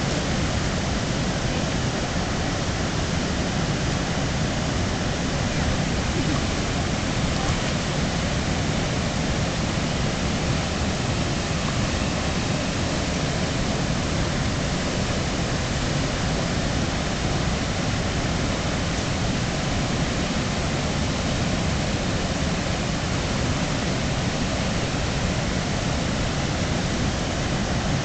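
Steady rush of river water running over rocks and rapids.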